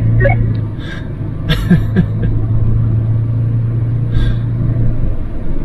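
A 4x4's engine running at a steady low speed, with a few knocks and rattles from the vehicle jolting over the trail.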